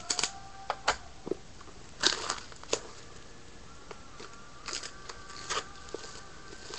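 Plastic wrapping on a small trading-card box crinkling and tearing as it is opened by hand, in short crackling bursts, loudest about two seconds in.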